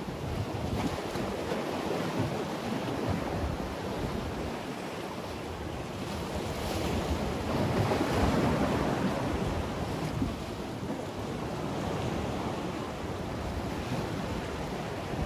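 Sea waves washing and breaking against the concrete blocks of a breakwater, with wind buffeting the microphone. The surf swells to its loudest about halfway through.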